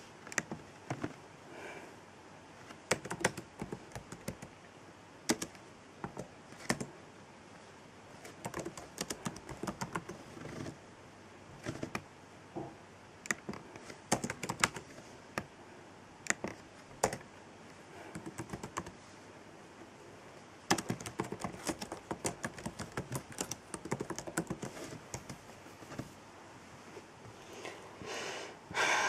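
Typing on an Acer laptop keyboard: irregular key clicks, some in quick runs and some single, with pauses between.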